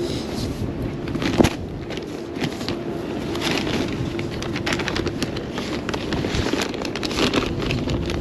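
Rustling and clicking of a paper takeaway bag being packed into a foil-lined insulated delivery bag, with the bag's lid and straps being handled. There is a sharp click about a second and a half in.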